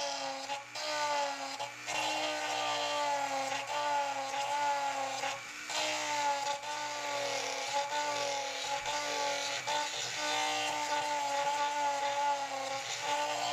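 Dremel rotary tool grinding out the marker-light housing to enlarge the opening for the bulb: a high whine whose pitch wavers as the bit loads and unloads, dropping out briefly a few times.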